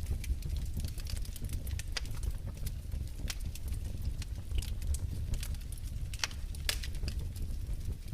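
Wood fire crackling in a fireplace: irregular sharp pops and snaps over a steady low rumble of the burning fire.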